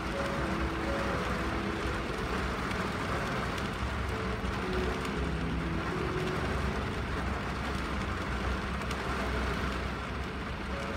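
Steady rain on a car windshield, an even hiss over a low rumble, under a slow melody of single held notes.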